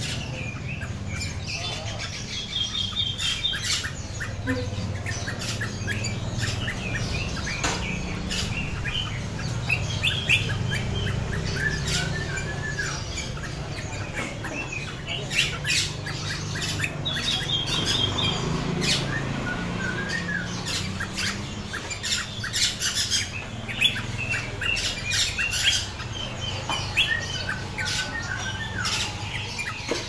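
Many caged birds chirping and squawking in short, overlapping calls, with quick trills now and then. A steady low hum and scattered clicks run underneath.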